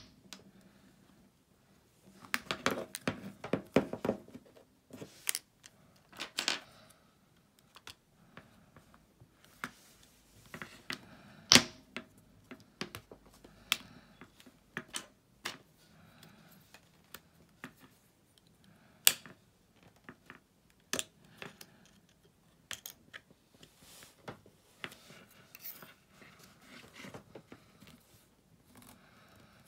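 Irregular small clicks, taps and scrapes of plastic and glass as an iPhone 6s is handled and pried at with a plastic opening tool. A quick run of clicks comes a few seconds in, then single sharp clicks now and then.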